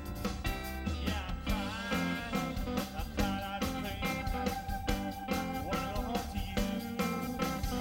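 Live blues band playing an instrumental break: an electric guitar lead with bending, gliding notes, one held for a few seconds, over a steady drum beat and bass.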